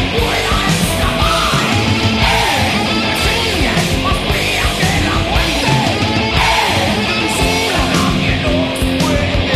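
Loud rock music with electric guitar over a steady, driving drum beat.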